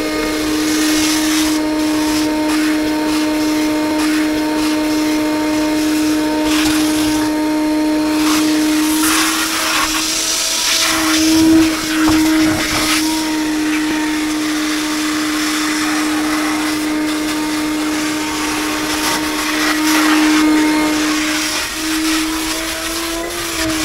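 Shop vacuum running steadily with a motor whine, used at the door to pick up sanding and scraping dust. Its pitch rises briefly about twelve seconds in and again near the end.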